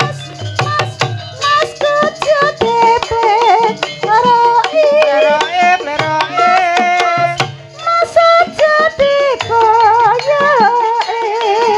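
Javanese kuda lumping music: a wavering melody line over drum strokes and quick percussion clicks.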